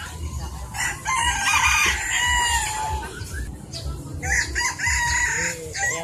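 Rooster crowing twice, two long calls of about two seconds and a second and a half, over a low steady background rumble.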